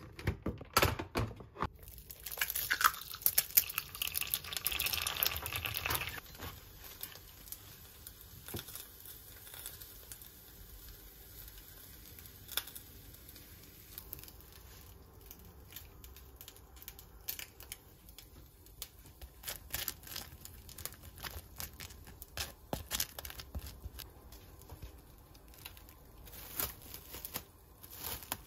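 Plastic cling film rustling and crinkling as it is handled and wrapped around a sandwich, with scattered light clicks and taps. A louder stretch of rustling comes a few seconds in.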